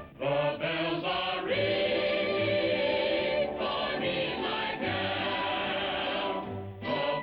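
Music with a group of voices singing, after a brief break right at the start.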